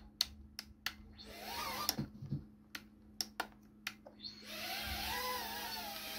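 Tiny whoop micro quadcopter: a string of sharp clicks and a brief rising whine from its brushless motors as it flips itself upright in turtle mode. About four seconds in the motors spin up into a steady high buzzing whine whose pitch wavers as it takes off and flies.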